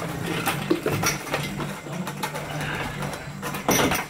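Steel engine hoist carrying a power hammer of about 1,000 pounds, rolled on its casters: a steady rattling rumble with small metal clanks, and one loud knock near the end.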